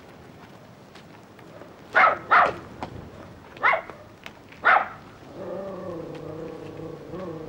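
A dog barks four times, two quick barks and then two more spaced about a second apart. From about five seconds in, music with long held notes.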